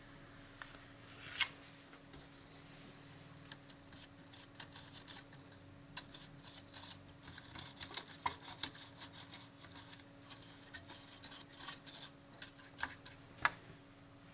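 Small clicks, taps and scratchy rubbing from handling plastic and metal parts inside a vintage portable cassette stereo being taken apart, busiest in the middle, with a sharper tick a little over a second in and another near the end. A faint steady hum runs underneath.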